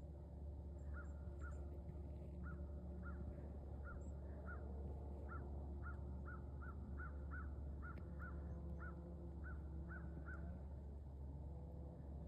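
An animal calling in a run of about twenty short chirps of the same pitch, two or three a second, starting about a second in and stopping about ten seconds in.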